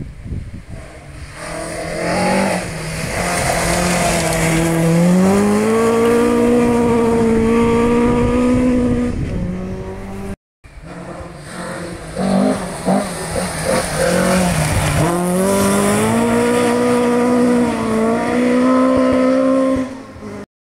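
Rally car engine approaching out of sight on a gravel stage, revs climbing in steps through gear changes and then held high. It cuts off abruptly partway through, and a second run follows, with the revs dropping briefly once before climbing again.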